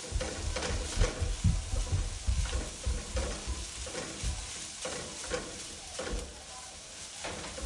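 Ground meat and mushrooms sizzling in a frying pan on a gas burner while a spatula stirs them, scraping and knocking against the pan, with the strokes busiest in the first few seconds and lighter afterwards.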